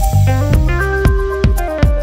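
Background music with a steady drum beat and held melodic notes.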